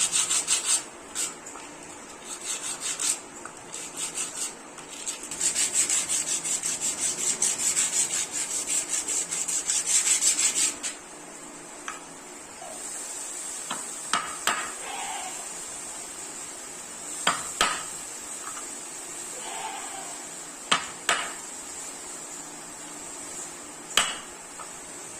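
Wood being hand-abraded in rapid back-and-forth strokes, sanding or rasping. The strokes come in two runs, the second and longer one about a quarter of the way in. Then comes a quieter stretch with a few sharp knocks, several in quick pairs, like wooden or metal pieces being tapped or set down.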